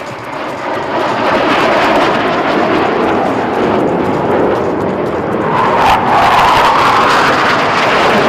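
Surya Kiran BAE Hawk jet trainers making a low crossing pass, their jet engines rising to a loud, steady roar a second or two in.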